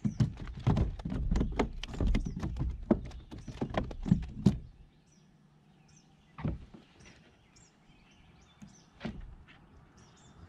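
Rapid clatter of knocks and taps as a caught bass and gear are handled on a measuring board in a plastic kayak, lasting about four and a half seconds. Then two single knocks a couple of seconds apart, with faint bird chirps behind.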